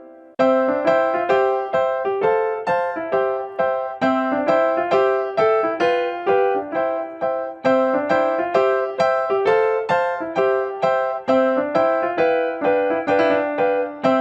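Background music: a bright piano or electric-piano melody played in even, plucky notes, about three a second, starting just after a brief break.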